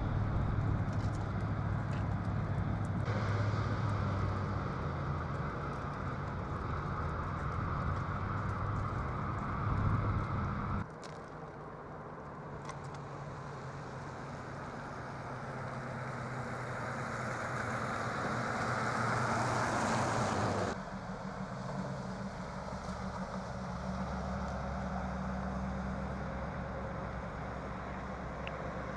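Steady low hum of an idling motor vehicle over outdoor hiss, changing abruptly about a third and about two-thirds of the way through. Between the two changes the hiss slowly grows louder.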